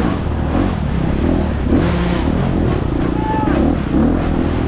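Single-cylinder four-stroke dirt bike engine revving up and down repeatedly under hard off-road riding.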